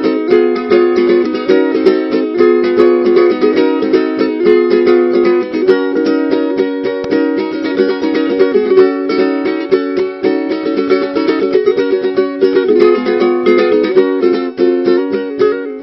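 Ukulele playing a quick, unbroken run of plucked notes and chords.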